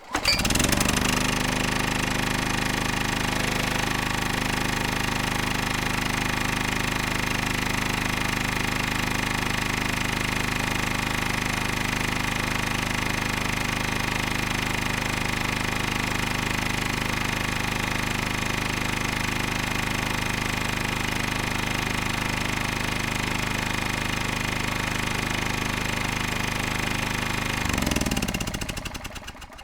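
Engine-driven electric generator running at a steady speed with a hum and a rapid mechanical rattle. It comes up to speed in the first second, and near the end its pitch drops and it dies away.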